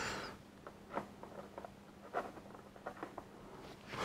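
Faint, scattered small clicks and taps of a plastic action figure being handled and set down on a cardboard playset floor, with a soft rustle at the start.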